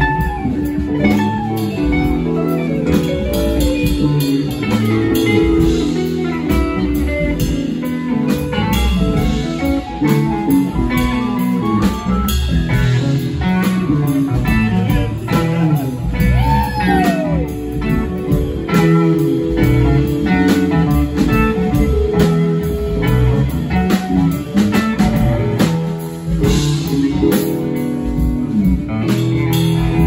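Live band playing an instrumental passage: electric guitar, keyboard and drum kit, with no singing.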